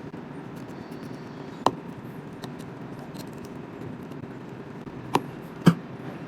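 A few sharp little clicks of small repair tools on the phone as the protective-cover screws are removed: one about two seconds in and two close together near the end, over a steady low hum.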